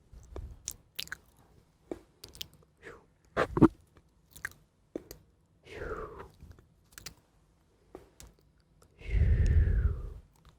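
Close-miked ASMR mouth sounds: crisp chewing, crunching and biting clicks that mimic eating the 'negative energy'. About six and nine seconds in come two longer mouth sounds that fall in pitch, and the second is the loudest.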